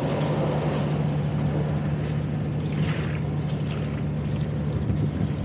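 Stationary engine running steadily at constant speed, with a strong even hum and a wash of noise over it.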